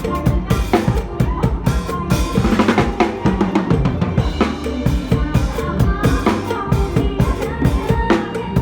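Drum kit played along with a recorded mor lam song. Kick drum, snare and rimshots keep a steady mor lam dance beat over the backing music.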